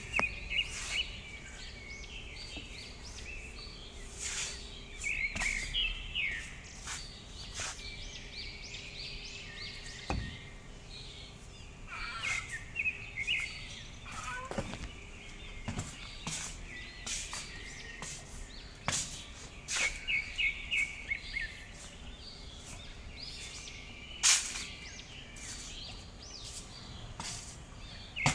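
Small birds chirping in quick repeated series throughout, with scattered sharp clicks and taps.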